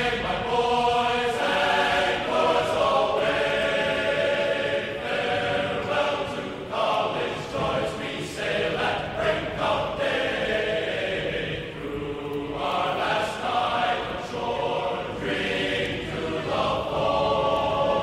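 A choir singing, the voices holding long notes that change every second or so.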